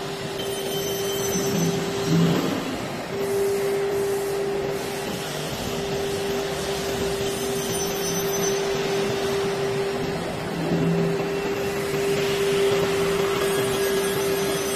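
SUDIAO wood door CNC sizing machine running, with its machining head travelling along the bed: a steady whirring hum with one constant tone over a rushing noise. The tone drops out briefly about two seconds in.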